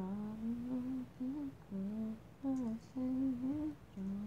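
A girl humming a melody without words, in a string of short held phrases.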